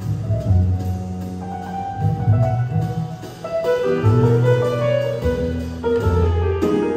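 Jazz piano trio playing: grand piano lines over sustained upright double bass notes, with light drums and cymbals.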